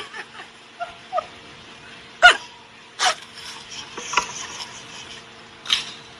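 Small dog barking: short, sharp barks spaced a second or so apart, three of them louder than the rest.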